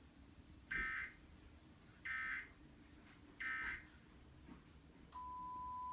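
Emergency Alert System header: three short bursts of digital data tones about a second apart, then a single steady alert tone that begins about five seconds in, signalling the start of an emergency alert.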